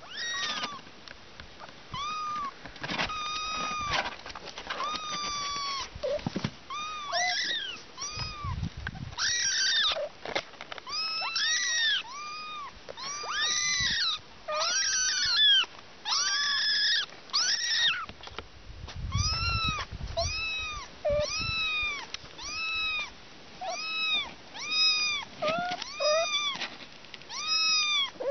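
Kittens meowing repeatedly, a long series of short, high-pitched mews about one or two a second, some overlapping.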